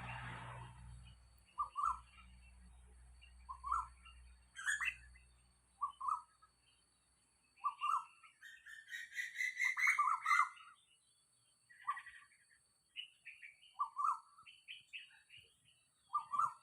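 Asian koel calling: a series of short notes repeated about every two seconds, with other birds chirping higher and faster in between.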